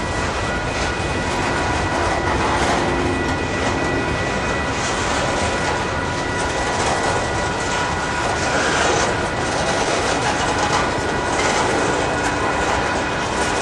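Freight train of tank cars rolling past: a continuous rumble of steel wheels on rail, with clickety-clack over the rail joints and thin, steady high tones above it.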